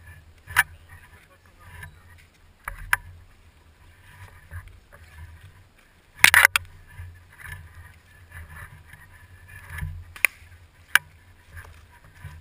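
Rumbling handling and rubbing noise on a gun-mounted camera, with scattered sharp clicks and a loud quick burst of several cracks about six seconds in.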